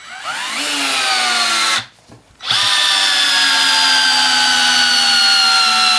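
Ryobi RSD18 18V cordless screwdriver whining as it drives a long screw into a log. A short run of under two seconds first rises in pitch, then the tool stops for about half a second. A longer run follows whose pitch sinks steadily as the load grows, near the limit of the tool's power.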